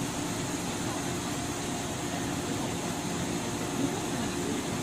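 Steady hum and hiss of a stationary 103 series electric train, its air conditioning and on-board equipment running while it stands at the platform.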